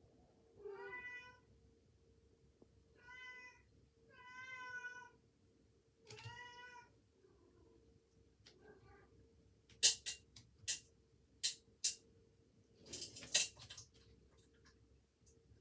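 Domestic cat meowing four times in the first seven seconds, each call about half a second to a second long. Later come several sharp clicks or knocks in quick succession and a short scuffling rattle, louder than the meows.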